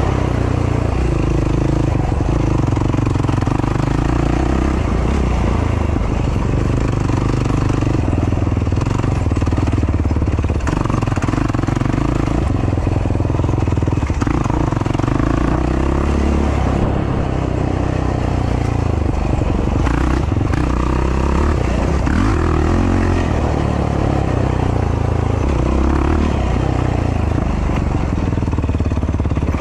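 Yamaha YFZ450R sport quad's single-cylinder four-stroke engine running hard, its pitch rising and falling with the throttle as the rider slows for tight turns and picks up speed again.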